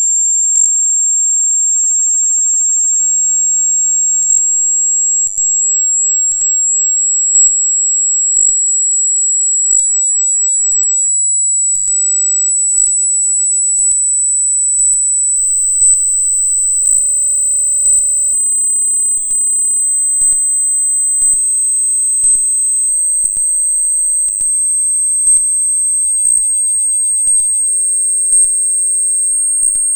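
Hearing-test sine tone: a single very high, pure tone rising very slowly in pitch, with faint ticks about once a second.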